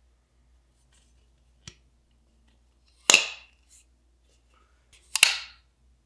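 Maxace Titanis folding knife with a CPM-3V blade, its blade snapping into place twice, about two seconds apart. Each snap is a sharp metallic click with a short ringing tail, and a fainter click comes a little before them.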